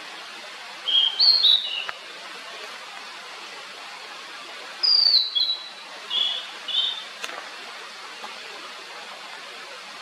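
Blue-and-white flycatcher singing: two phrases of clear, high whistled notes, some falling in pitch, one about a second in and another near the middle, over a steady background hiss.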